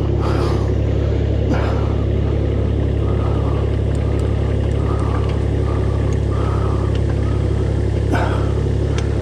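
An engine running steadily at a constant speed, giving a deep even hum, with a few light clicks and knocks over it.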